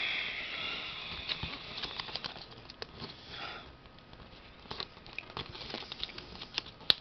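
A square sheet of paper being folded and creased by hand: soft rustling and crinkling with scattered small clicks as the folds are pressed down, and one sharper snap near the end.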